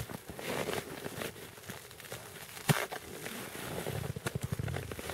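Handling noise from baiting a setline by an ice hole: rustling and small clicks of clothing, tackle and a plastic bait box, with one sharp knock a little under three seconds in and a low rumble near the end.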